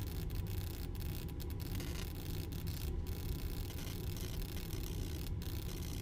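High-voltage arc drawn from a microwave oven transformer's output with a copper wire on a stick: a steady buzzing hiss over a low electrical hum, with the hiss dropping out for an instant several times as the arc flickers.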